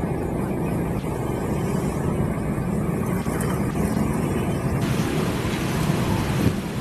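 Diesel-hydraulic locomotive (BB 304) running light toward the listener, its diesel engine running with a steady low rumble. About five seconds in, the sound turns brighter and hissier.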